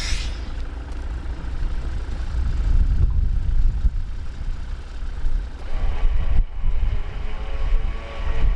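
A vehicle engine running with a heavy, continuous low rumble.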